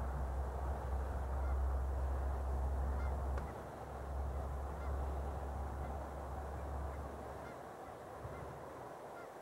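A flock of Canada geese honking and calling, many voices overlapping. A low rumble underneath fades out about seven seconds in.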